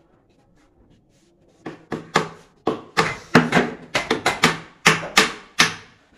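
A hammer striking a plywood cabinet panel: about a dozen sharp wooden knocks in quick, irregular succession, starting a little under two seconds in.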